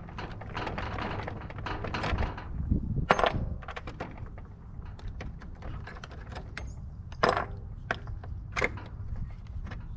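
Hand tools working on a furnace blower assembly: metal scraping and clinking, with a sharp metallic click about three seconds in and two more near the end, over a steady low hum.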